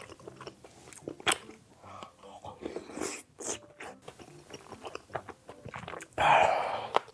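Close-up mouth sounds of a person chewing a mouthful of large meat-filled dumpling (wang mandu) in ramen broth: many small wet smacking clicks. Near the end comes a louder noisy rush, under a second long.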